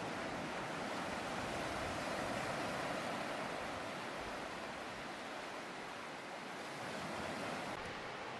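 Sea surf washing on the shore: a steady rush of noise that swells a little about two seconds in and again near the end.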